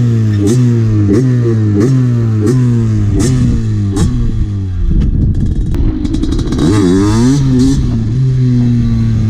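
Derbi Senda's tuned 77cc two-stroke engine revving in a run of quick throttle blips. The pitch jumps up and slides back down about every two-thirds of a second, then comes one bigger rev around seven seconds in and steadier running near the end.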